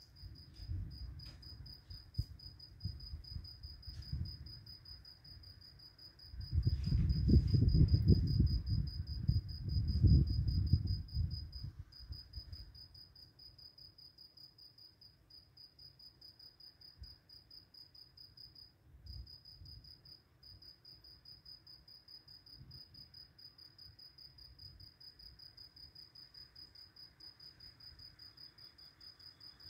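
Crickets chirping in a steady, fast-pulsing, high trill. A loud low rumble comes in about six seconds in and lasts some five seconds.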